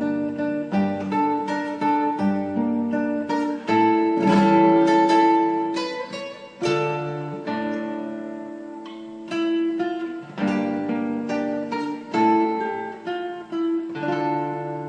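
Acoustic guitar being played, a run of picked notes and chords, loudest from about four to six seconds in.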